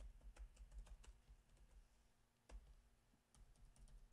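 Faint typing on a computer keyboard: irregular key clicks with a short lull in the middle.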